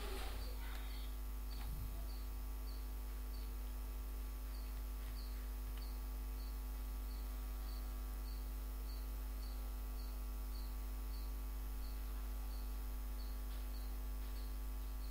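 Steady electrical hum on the recording, with a faint high ticking repeating evenly about one and a half times a second.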